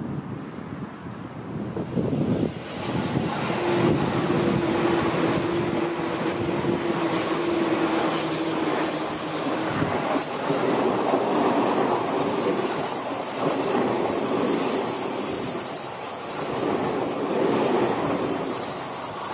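A Seibu Railway electric commuter train passing close by at speed, starting about two seconds in: a loud, dense steady noise of wheels running on the rails. For several seconds early in the pass a steady tone sits over the noise.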